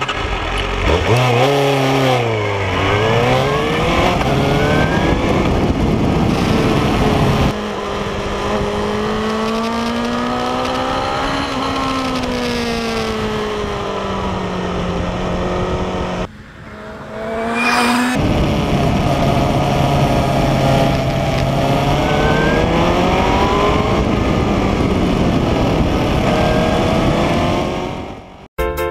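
A motor vehicle engine revving up and down as it accelerates and slows, in several edited-together stretches that change abruptly about a third of the way in and again a little past halfway.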